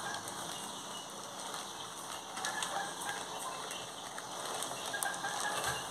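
Faint rustling of a plastic bag of wheat flour with a few light clicks as flour is scooped out into a cup.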